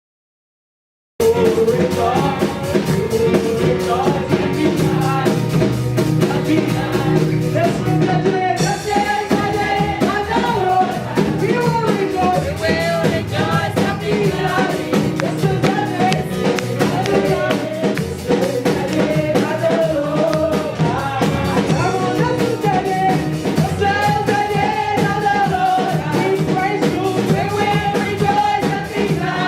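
Music with singing, which starts abruptly out of silence about a second in and then plays on steadily.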